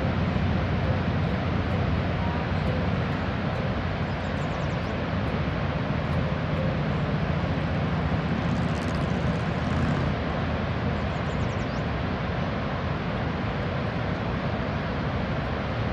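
Steady, low rumbling roar of the American Falls at Niagara heard from a distance, even and unbroken.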